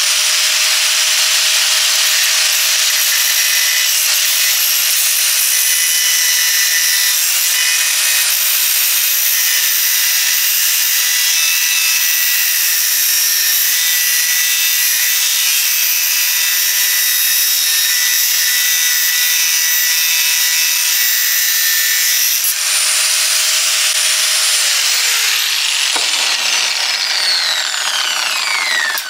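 Die grinder cutting a ring off the end of a metal double-wall stove vent pipe, a loud, steady high-pitched grinding. Over the last few seconds the grinder winds down with a falling whine.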